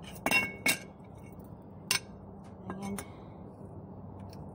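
Sharp metallic clinks and knocks from handling a shopping cart's caster wheel and its metal parts: two loud clinks just after the start, another about two seconds in, and two lighter ones near three seconds, over a steady low hum.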